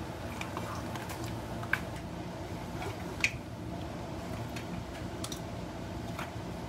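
Utensils clicking and scraping against the pot as shrimp, corn, potatoes and vegetables are stirred, with two sharper knocks about a second and a half apart near the middle. A steady low hum runs underneath.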